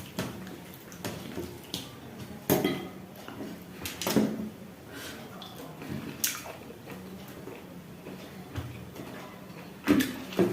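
Close-up eating sounds: wet chewing and mouth smacks of goat meat and dhido, with a few sharper clicks and smacks at irregular intervals.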